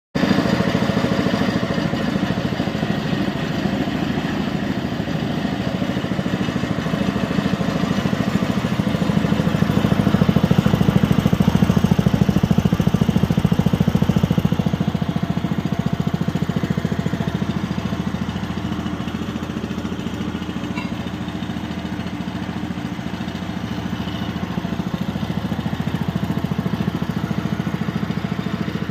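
An engine running steadily, a little louder for a few seconds about ten seconds in, then settling back.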